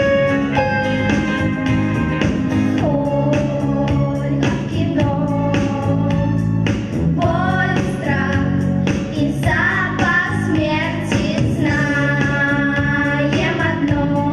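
A woman singing a song with held, wavering notes over instrumental accompaniment.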